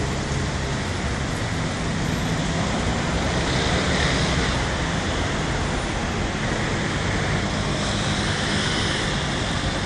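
Steady city traffic noise: a continuous rushing roar of cars with no distinct events standing out.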